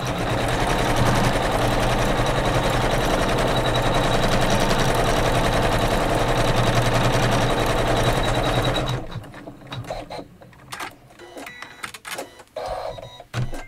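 Embroidery machine stitching a placement line on a hooped quilt block: a steady, rapid needle rattle that stops suddenly about nine seconds in, followed by a few light clicks and knocks.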